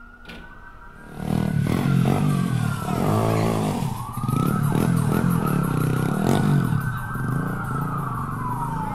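A siren wailing in slow rises and falls over a bass-heavy beat that comes in about a second in: the opening of a reggae track.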